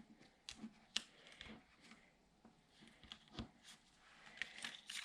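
Faint handling of paper and craft pieces on a table: scattered light taps and rustles, a little busier near the end.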